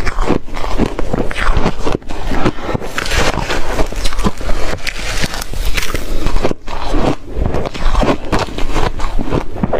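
Ice being chewed: a dense, continuous run of crunching and crackling, broken briefly about two seconds in and again past six seconds.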